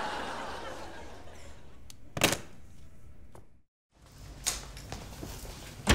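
Faint room tone with a short sharp thud about two seconds in and a softer click a couple of seconds later, broken by a moment of complete silence.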